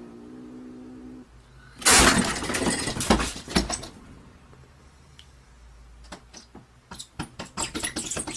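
A cat's drawn-out meow ends about a second in. Then comes a loud crash of things falling, clattering for about two seconds, and near the end a quicker run of sharp clattering knocks.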